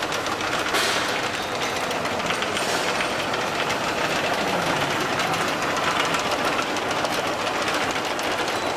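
Rotary tablet press running steadily, its punches clicking rapidly and densely as the turret turns, pressing seasoning powder into chicken bouillon cubes.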